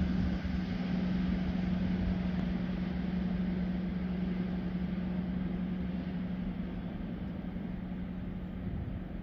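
XPT diesel passenger train moving away, its engine giving a steady droning hum with a strong single tone over a rumble that slowly fades.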